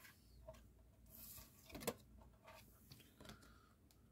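Faint rustles and light ticks of thin cardboard trading cards being handled and turned over, the clearest tick about two seconds in.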